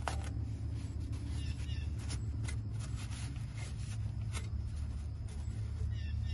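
Paper shop towel rubbing and wiping over an exhaust pipe and its clamp, a string of short scuffs and crinkles, as excess patch compound is cleaned off the repaired pipe. A steady low hum runs underneath, and a few faint bird chirps come through.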